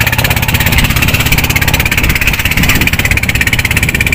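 Engine of a small wooden fishing boat running steadily underway, with a rapid, even chugging pulse.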